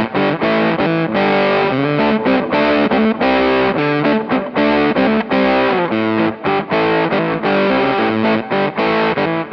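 Electric guitar played through a KingTone MiniFuzz v2 fuzz pedal, with the guitar's tone control rolled back to tame the fuzz's harsh highs. It plays a quick bluesy rock riff of short notes with several string bends.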